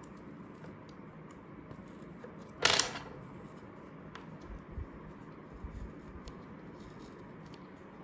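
Hands working the opened plastic casing of a JBL Go portable speaker: faint clicks and rubbing, one short loud scrape about two and a half seconds in as a part is pulled free, and a few dull bumps of handling a couple of seconds later.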